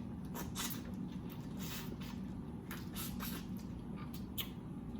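Close-up eating sounds from chewing a large barbecue shrimp: scattered short wet smacks and crackles over a steady low hum.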